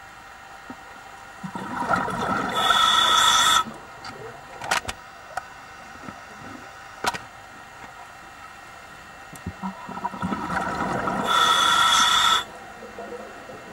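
Scuba diver breathing through a regulator underwater: two breaths, each swelling into a loud hiss about a second long, one a few seconds in and one near the end. A few sharp clicks between the breaths.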